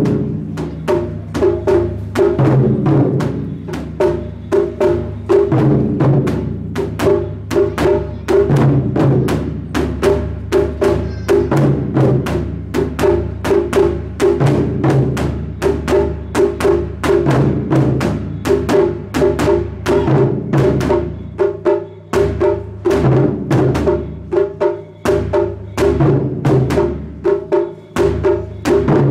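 Japanese taiko ensemble: several nagado-daiko barrel drums struck hard in unison with wooden bachi, in a driving rhythm of several strikes a second. It is a powerful drum piece meant to evoke thunder.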